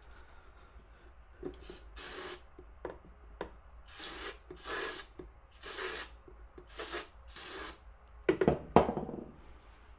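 Aerosol can of ThorroClean bore cleaner sprayed in about six short hissing bursts onto the cleaning rod, wetting the brush before it goes down the bore. Two sharp knocks follow near the end.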